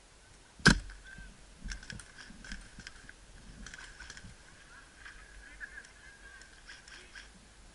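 Airsoft gunfire: one loud, sharp crack about a second in, then scattered faint clicks and ticks, over a steady high-pitched whine.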